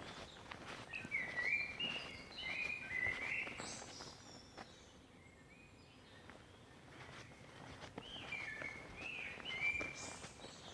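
Songbirds chirping: two runs of quick chirping notes, one early and one near the end, over a steady background hiss with scattered short clicks.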